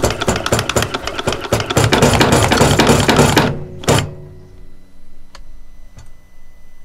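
Drive-by-wire throttle motor and linkage on RB26 individual throttle bodies, engine off, buzzing and rattling with rapid clicks as the accelerator pedal is pushed through its range. It stops about three and a half seconds in, followed by a single clack, then a faint hum and a couple of light ticks.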